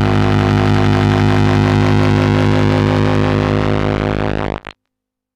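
Sustained droning music: a low chord of many steady tones held unchanged, then cut off abruptly about four and a half seconds in.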